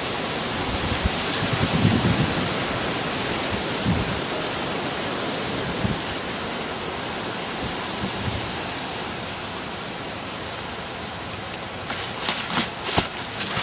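Steady rushing noise with a few dull low thumps about every two seconds; sharp crackling clicks begin near the end.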